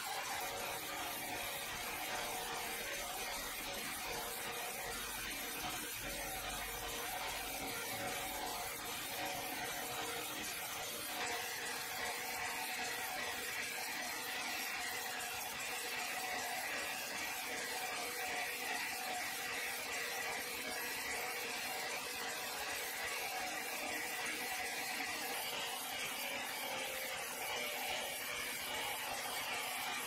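Horizontal band sawmill blade running through an old, weathered timber beam: a steady sawing hiss with an even whine held under it throughout.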